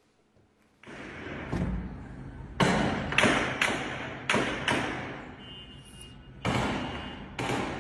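Gunshots in an armed street clash: about seven single shots at uneven intervals, each trailing off in an echo, over a steady background hiss.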